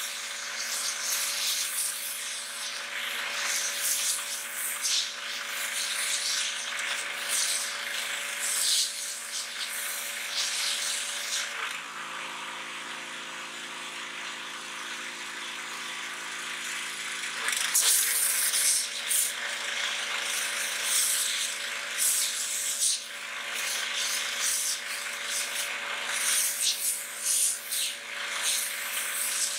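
Pressure washer jetting water onto a pumpkin: the steady hum of the washer's pump under a loud, fluttering hiss and spatter of spray. About twelve seconds in the spray cuts off for some five seconds, leaving the machine humming on its own with its tone shifted, then the jet hisses back on.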